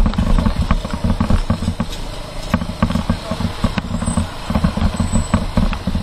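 Motorcycle engine running at low speed over a rough dirt road, a choppy low rumble with frequent small clicks and rattles from the bumps.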